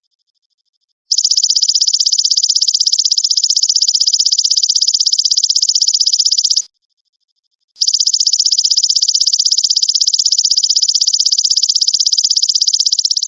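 Belalang emas insect giving a rapid, high-pitched buzzing trill in two long phrases of about five and a half seconds each, separated by a pause of about a second.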